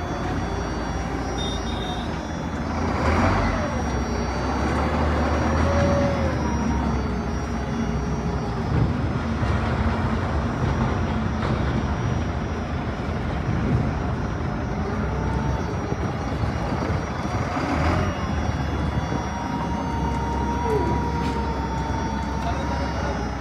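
Komatsu GD705A motor grader's diesel engine running steadily as the grader drives down off a lowboy trailer, with a low, even hum and brief swells in level about three seconds in and again near the end.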